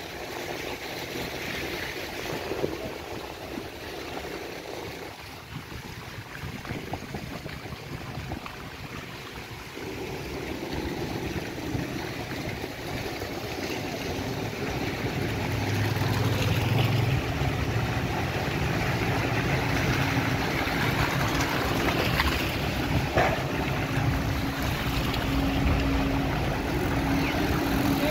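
A vehicle driving slowly over a mud-covered, waterlogged street: tyres swishing through wet mud with an engine running, the engine hum growing louder through the second half.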